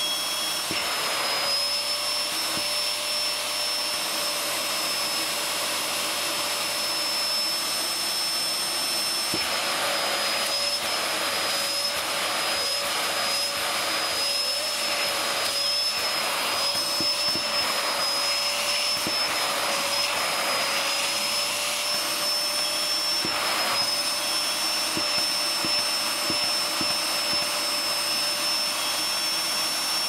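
Hoover Telios canister vacuum cleaner running steadily, its hose nozzle sucking against a sock on a foot. The motor's whine dips slightly in pitch a few times.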